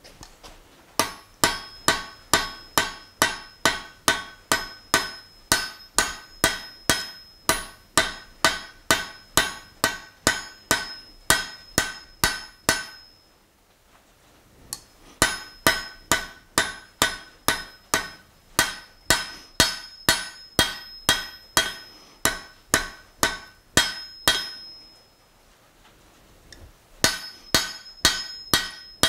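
Hand hammer striking a hot steel bar on an anvil to forge a taper: steady blows about two and a half a second, each with a bright anvil ring. The hammering comes in three runs, broken by two pauses of about two seconds.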